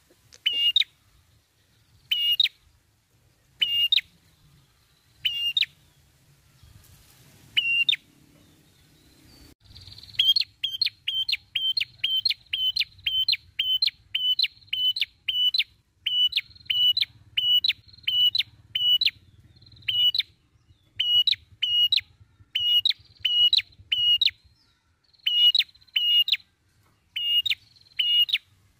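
A red-headed prenjak (prenjak kepala merah), a tailorbird, calls in loud, sharp chirps. They are spaced well apart at first, then from about ten seconds in come in a fast run of two or three a second, broken by a couple of short pauses.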